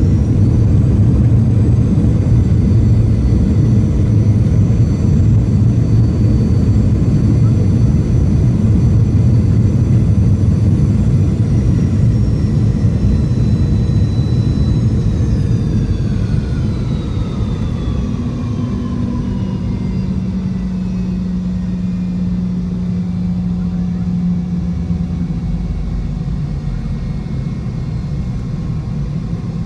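Boeing 717's rear-mounted Rolls-Royce BR715 turbofans, heard from inside the cabin, in reverse thrust right after touchdown: a loud rumble with a high whine. About halfway through the whine falls in pitch and the sound eases as the engines spool back down during the rollout.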